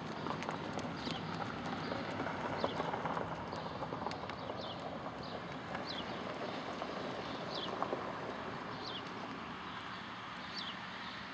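American Quarter Horse gelding's hooves clip-clopping on the ground, with a high falling chirp repeating every second or so in the background.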